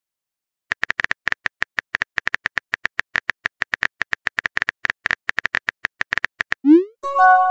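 Phone keyboard key-click sounds from a texting app, a rapid, even run of taps for about six seconds as a message is typed. Near the end comes a short rising whoosh and then a bright chime of a few held notes as the message is sent.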